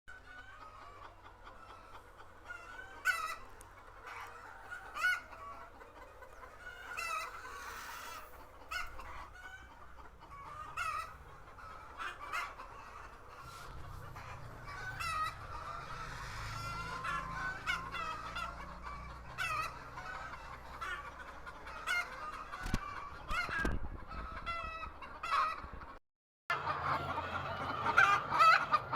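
Flock of Golden Misri chickens clucking with many short, repeated calls, and a rooster crowing, over a steady low hum. The sound cuts out briefly about 26 seconds in.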